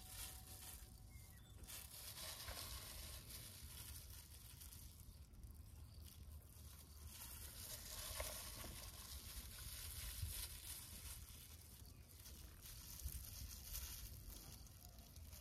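Faint crinkling and wet squelching of plastic-gloved hands handling marinated chicken pieces and pushing them onto a metal skewer.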